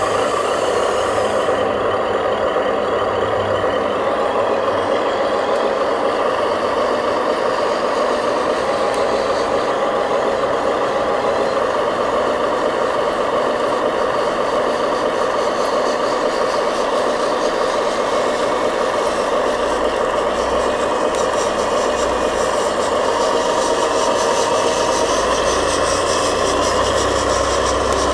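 Remote-control construction truck running steadily, a continuous mechanical drone with no breaks.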